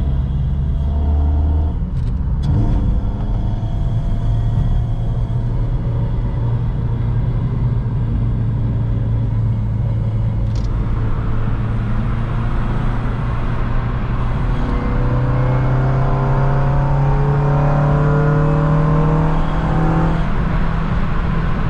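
Honda Civic Si's 2.0-litre i-VTEC four-cylinder engine heard from inside the cabin while driving, with road noise. The engine note holds steady, then rises gradually from about 15 seconds in as the car accelerates, and changes near the end with a gear change.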